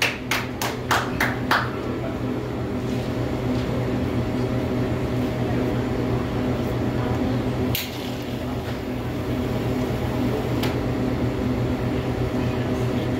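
A quick run of hand claps, about four a second, that stops after a second and a half. Then a steady electrical machine hum, like a cooler or air-conditioning unit, broken by two sharp clicks.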